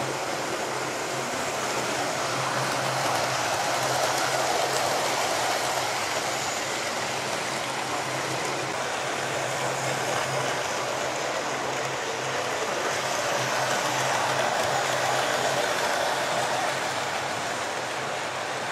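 Electric model trains running round the layout's track: a steady low motor hum and the rumble of wheels on the rails. The sound swells twice as a train passes close by.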